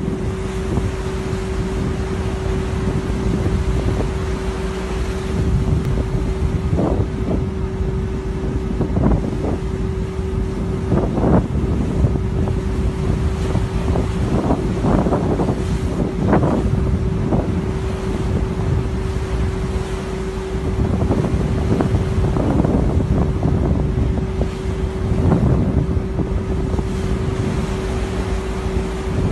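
Wind buffeting the microphone on the open deck of a boat at sea, over the steady drone of the vessel's engine with one constant hum, in gusts that flare up now and then.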